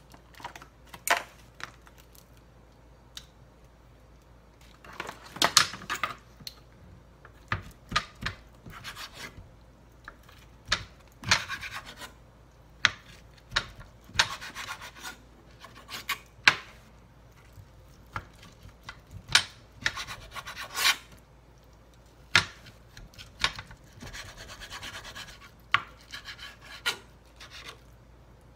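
Chef's knife cutting raw chicken breast into chunks on a cutting board: irregular sharp knocks of the blade on the board, with a few longer rasping slicing strokes.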